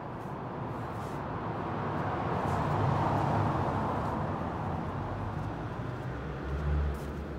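A road vehicle passing by, its tyre and engine noise swelling to a peak about halfway through and fading again, with a brief low thud near the end.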